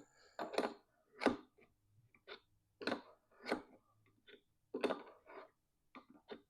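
Irregular short clicks, taps and rustles of small parts and tools being handled during hands-on fitting work, about a dozen in all with short pauses between them.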